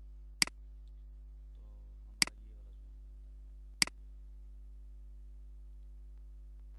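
Three sharp computer mouse clicks, spaced about a second and a half to two seconds apart, over a steady low electrical hum.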